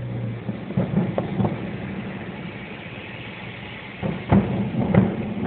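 Fireworks shells bursting in the distance, heard as dull thuds from inside a car: a few soft ones about a second in, then two louder ones near the end, over a steady traffic rumble.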